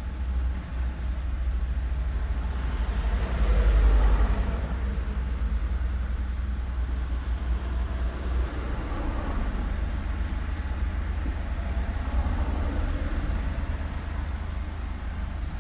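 Street traffic with a steady low rumble. A vehicle passes close, swelling to its loudest about four seconds in and then fading back into the general traffic noise.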